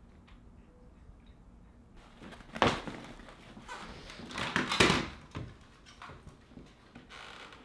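A wooden chair knocking and scraping on the floor as someone gets up from a table, loudest twice, about two seconds apart, followed by lighter knocks and steps.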